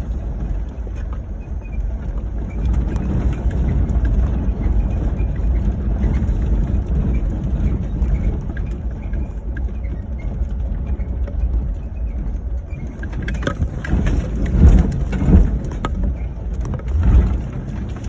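Ford Crown Victoria driving over rough dirt: a steady low rumble of engine and tyres, with several loud knocks and rattles in the last few seconds as the car bumps over the ground.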